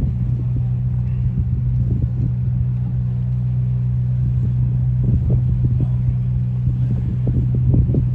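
Steady low engine rumble from a large motor yacht under way at slow speed, with faint irregular knocks from about five seconds in.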